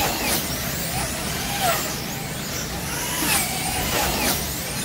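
Wing-style slot cars racing on a multi-lane track, their small electric motors whining. The whine rises and falls in pitch as cars sweep past, with a louder pass every one to one and a half seconds.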